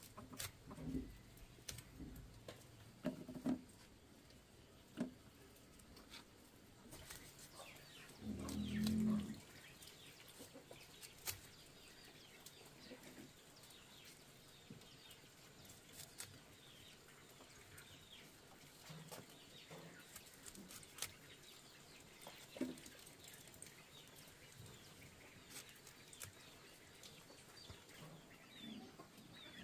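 Chickens clucking faintly, with short high peeps, among scattered sharp clicks and knocks. About eight seconds in, a louder low sound lasts for about a second.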